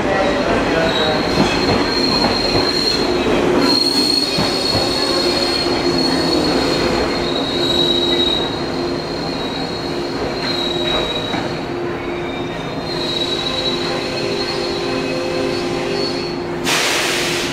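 An arriving JR East 115 series electric train's wheels squealing on the curved station track, with a high squeal and a lower one wavering over the rumble of the wheels. A loud hiss lasting about a second comes near the end.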